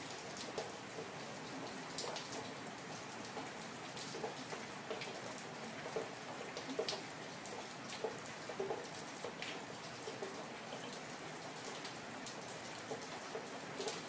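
Steady rain falling on an empty street, with scattered louder drops tapping and plinking on hard surfaces.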